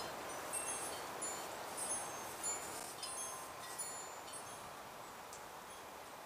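Wind chime ringing lightly: scattered high tinkling notes over a faint breeze, thinning out after about four seconds.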